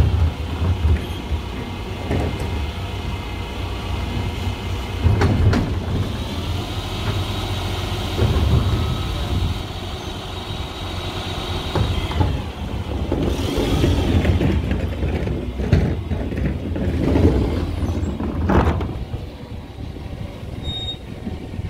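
Bin lorry's diesel engine running with a steady rumble, with a higher whine for several seconds in the middle and a series of clunks and rattles as wheelie bins are lifted, emptied and wheeled back. The lorry pulls away near the end and the rumble drops.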